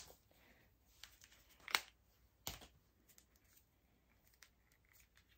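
Faint handling sounds: a few soft clicks and light rustling as an AirPods case cover is fitted by hand, with two sharper clicks near the middle.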